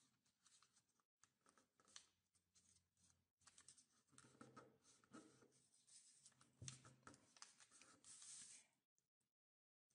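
Faint rustling and soft crinkling of a sheet of origami paper being folded and creased by hand, with scattered small clicks. The sound drops out completely shortly before the end.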